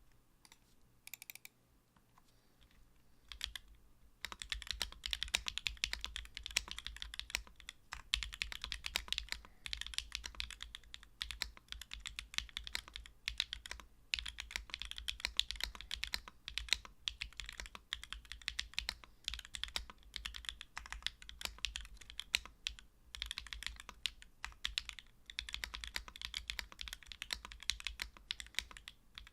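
Typing on a SingaKBD PC Kohaku mechanical keyboard, a polycarbonate-cased board with a leaf-spring gasket mount, an aluminium plate and no foam, fitted with Sui Xiin Studio Zi Yuan switches, Durock V2 stabilizers and GMK Nimbus keycaps. A few single keystrokes come first, then continuous fast typing from about four seconds in, broken by brief pauses.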